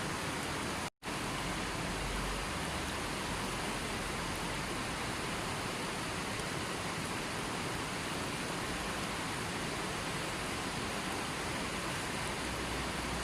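River water flowing: a steady, even rushing wash, broken once by a split-second dropout to silence about a second in.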